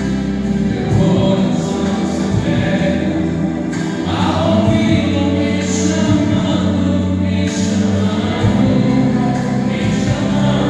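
Gospel worship song: a group of singers singing together over instrumental backing.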